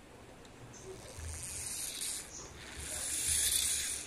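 Two drawn-out hissing noises, the second longer and louder and ending just before speech resumes.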